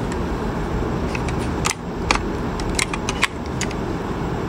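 Small plastic and metal parts of a hair straightener clicking as they are handled and fitted back together during reassembly: a run of about ten light clicks through the middle, over a steady background noise.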